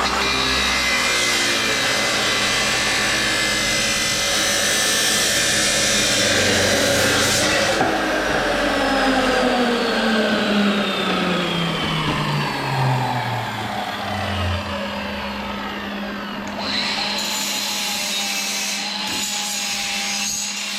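Power tool cutting through metal, a continuous harsh cutting noise. About halfway through, a whine falls steadily in pitch as the tool's speed changes. A steady low hum runs beneath it.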